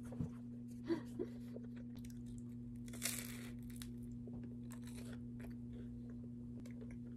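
A person biting into a slice of multigrain toast spread with cream cheese and blueberry jam: one loud crunch about three seconds in, then faint chewing. A steady low hum runs underneath.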